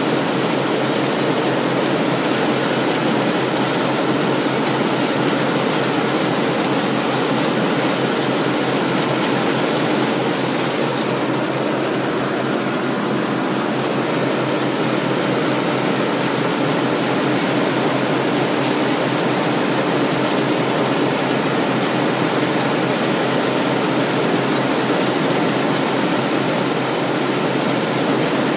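White 8900 Harvest Boss combine running steadily while harvesting soybeans: a dense, even mechanical noise with a faint steady hum.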